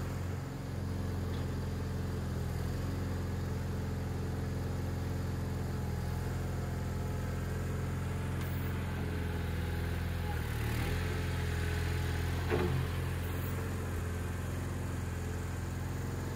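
Garden tractor engine running steadily while it works a front-end loader bucket. Its note dips briefly about two-thirds of the way through, and there is a single clunk shortly after.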